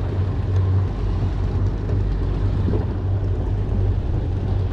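Outboard motor of a small fishing boat running steadily at trolling speed: an even low drone with a rush of wind and water noise over it.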